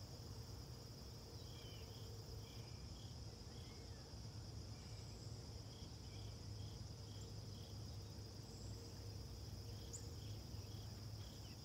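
Insect chorus of crickets: a steady high trill with separate short chirps repeating in runs, over a faint low hum.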